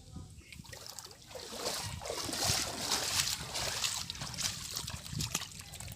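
Water splashing and sloshing in shallow water, building up about a second in and loudest in the middle.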